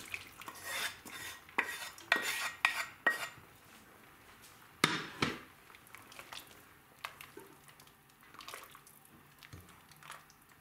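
A wooden spatula scraping and knocking against a non-stick frying pan and a stainless steel pot as fried beetroot-and-vegetable mix is scraped into borscht. There are several sharp knocks in the first five seconds, the loudest about five seconds in, then quieter stirring in the pot.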